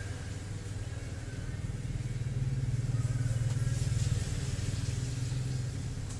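A motor vehicle engine running: a steady low rumble that grows louder about two seconds in and eases off again.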